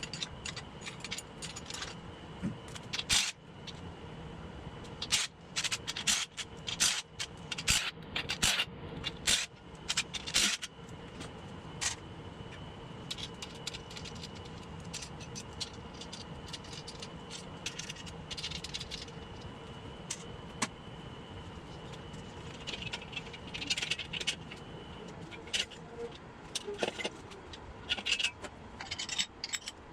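Metal engine parts of an air-cooled VW engine clinking, rattling and scraping as they are handled and set down during a teardown. The clicks are sharp and irregular and come in bunches, over a steady background hum.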